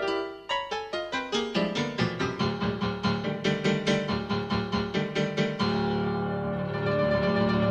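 Piano music: a run of quick, evenly struck notes, about four or five a second, that gives way to a held chord about two thirds of the way through.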